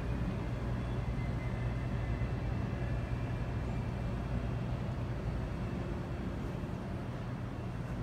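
Steady low hum and rumble of a large, empty indoor space: even room tone with no distinct events.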